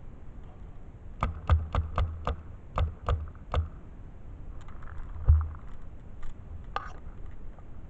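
Paintball markers firing a quick string of about eight sharp shots, roughly four a second, then a few scattered knocks and one heavier thump.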